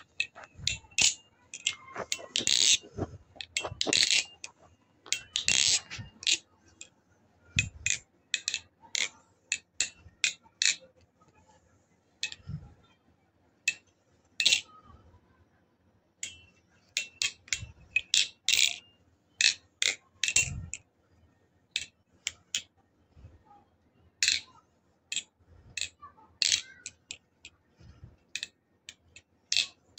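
Armed Shark Squidtrainer V4 balisong trainer being flipped: its handles swing around the trainer blade and clack against each other and the latch, giving sharp metallic clicks at irregular intervals, often one or two a second and sometimes in quick runs. A few duller knocks come in between as the handles land in the hand.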